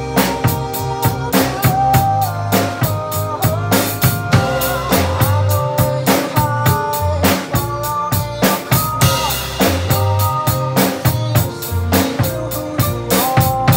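A child playing a drum kit, with bass drum, snare and cymbal strikes in a steady beat, along to a recorded song with a melody.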